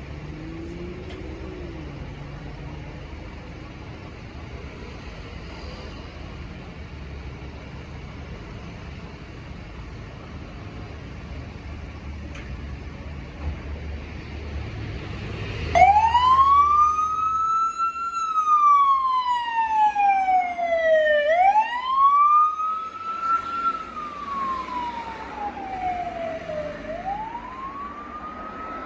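Low vehicle rumble, then about halfway through a fire engine's siren switches on suddenly and loud. It wails, each cycle rising quickly and then falling slowly, repeating about every five seconds.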